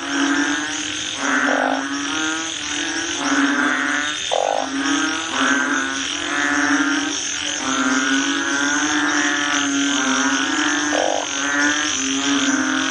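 Frog croaking: repeated low, pulsing calls, each about a second long and coming every second or two.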